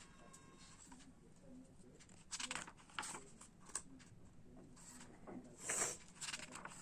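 Packaging being handled and opened: short bursts of rustling and crinkling with scattered sharp clicks, the loudest burst near the end.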